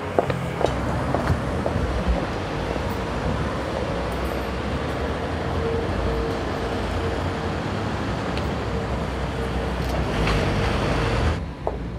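Steady street traffic noise with a low rumble, with a few footsteps on the pavement in the first second or so and a faint steady hum from a few seconds in. The hiss drops away abruptly near the end.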